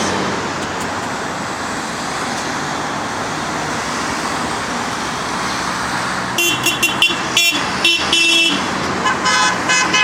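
Steady street traffic, then from about six seconds in a car horn honks a quick series of short toots, with another short run of honks near the end.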